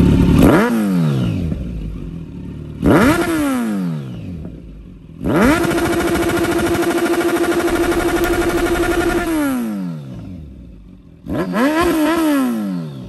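2020 Kawasaki Z900's 948 cc inline-four engine, fitted with a full aftermarket Akrapovič exhaust and an ECU flash, revved in neutral: a quick blip, a second blip, then a rev held steady at high rpm for about four seconds before dropping back, and one last blip near the end.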